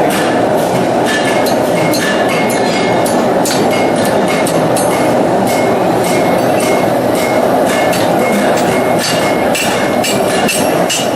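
Repeated sharp metallic strikes with a short ring, like hammer blows on metal, over a steady loud roar.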